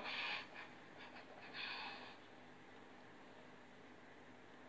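Two short breathy exhales, one right at the start and another about a second and a half in, then quiet room tone.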